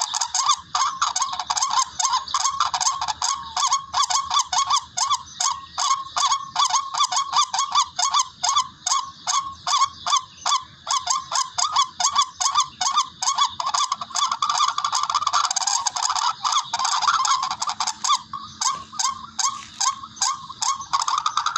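Tikling (rail) call played as a hunting lure: a fast run of harsh, honking notes, about three a second, that blurs into a more continuous call near the end.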